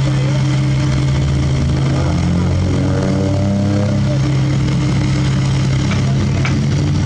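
Mini excavator's diesel engine running steadily, working harder for a couple of seconds with a faint rising whine as the boom moves a root-ball tree stump over a dump truck. Near the end a couple of faint knocks come as the stump is dropped into the truck bed.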